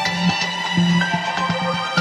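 Background music: held synth-like notes stepping between pitches over a steady beat.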